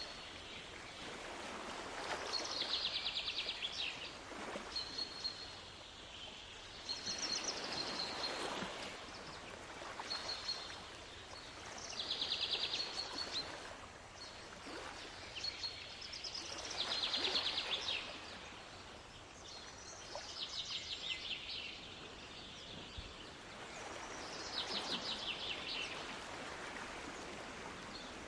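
Waves washing in, swelling and easing about every four to five seconds, with birds singing repeated high trilled phrases and short whistled notes over them.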